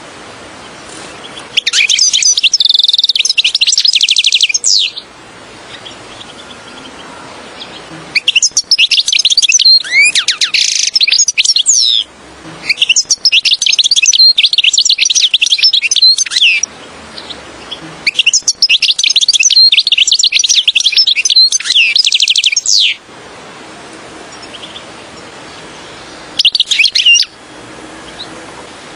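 European goldfinch singing: five phrases of rapid twittering, trilling song, most lasting several seconds and the last one short, with brief pauses between them.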